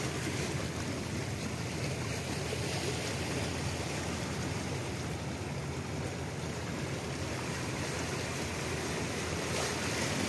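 Steady wash of harbour water and wind on the microphone, an even noise with no distinct events.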